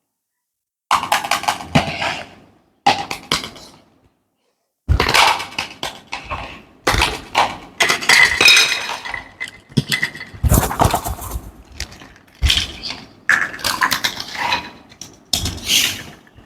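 Small plastic toy pieces clinking and clattering as they are handled, unpacked and set down, in a series of short irregular clattering spells. Quiet for about the first second and again for a moment around four seconds in.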